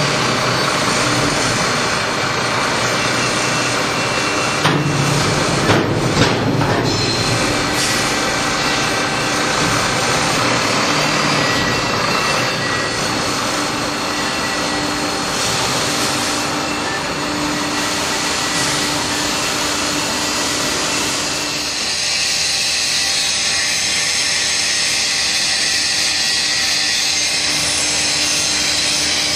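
Heavy machinery running steadily: the A-Ward MiTilt container tilter's hydraulics at work, with a few sharp metallic clunks about five to six seconds in. About three-quarters of the way through, the sound shifts to a higher, hissing whine as the frame tips the loaded shipping container up.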